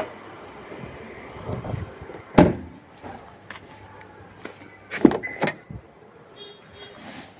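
Tata Punch door or boot lid being handled and shut: two solid thumps, one about two and a half seconds in and the louder one about five seconds in, with smaller latch clicks and knocks between them.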